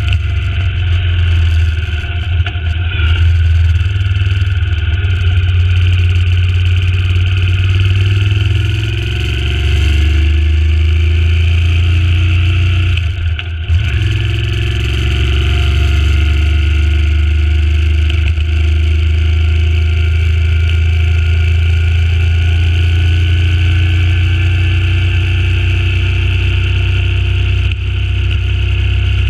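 Suzuki Intruder C800's 805 cc V-twin engine running under way, its pitch rising and falling with the throttle, with a brief drop in level about halfway through.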